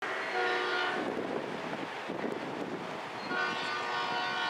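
Air horn of an approaching Florida East Coast freight locomotive, sounding two blasts: a short one at the start and a longer one beginning about three seconds in.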